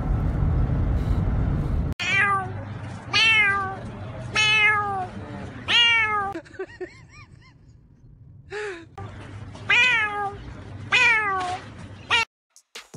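Low car-cabin rumble for about two seconds, then a cut to a series of loud cat-like meows, roughly one a second, each falling in pitch, with a few softer, shorter ones in a lull near the middle.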